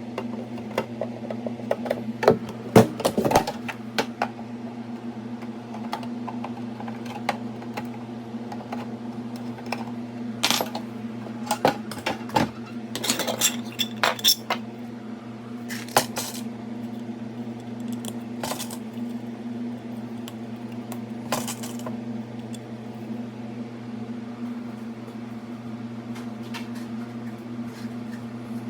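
Clinks, taps and knocks of small metal parts and tools being handled on a work surface, in scattered clusters, over a steady low electrical or mechanical hum.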